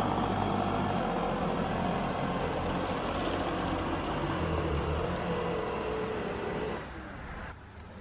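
Yeedi K700 robot vacuum running: its suction fan whirs steadily with a faint whine as it drives forward across carpet under remote control. The sound drops in level near the end.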